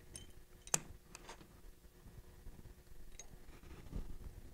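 A few light clicks and taps from fly-tying tools being handled at the vise while a dubbing loop is wrapped onto a hook. The sharpest click comes just under a second in, and there is a soft low thump near the end.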